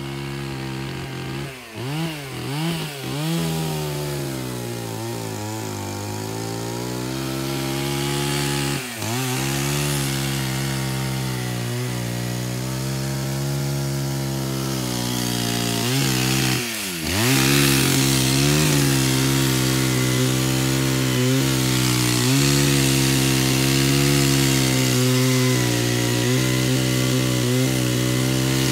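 Gasoline chainsaw running and cutting birch wood, its engine pitch dipping and recovering a few times (about two seconds in, around nine seconds and around seventeen seconds) as the chain bites into the wood, then running a little louder.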